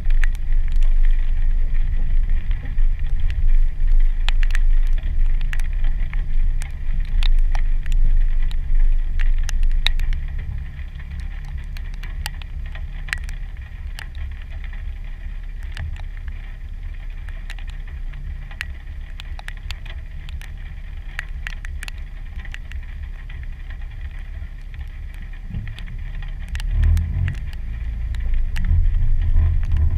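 2015 Jeep Wrangler Sport's 3.6-litre V6 driving slowly along a muddy trail, a low rumble heard through a hood-mounted camera, with raindrops ticking on the camera housing. The rumble drops about ten seconds in and picks up again near the end.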